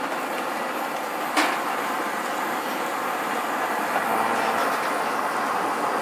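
Steady hissing noise of cooking at a street-food stall, with one sharp clank about a second and a half in and a lighter tap near the four-second mark.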